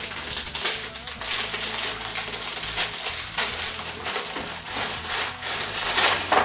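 Plastic biscuit-packet wrapper crinkling and rustling as it is handled and opened, with short sharp crackles throughout.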